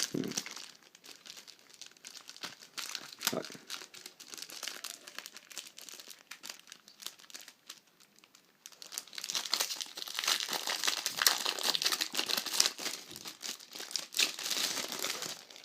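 Packaging being handled and crinkling. Sparse crackles and clicks at first, then denser, louder crinkling from about nine seconds in.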